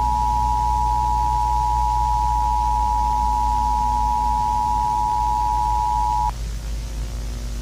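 Emergency Alert System attention signal: a steady two-tone alert sound that cuts off sharply about six seconds in, leaving a low hum and hiss.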